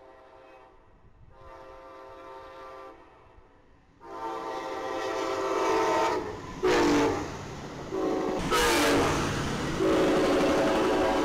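Passenger locomotive's air horn sounding a series of blasts, faint at first, then much louder from about four seconds in with a long blast, a short one and more long ones, over the rising noise of the train running by.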